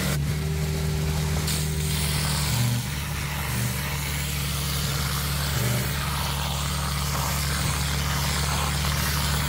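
Ditch Witch vacuum excavator running steadily: a constant low engine and vacuum drone under the hiss of the high-pressure water lance cutting soil while the suction tube pulls out the slurry.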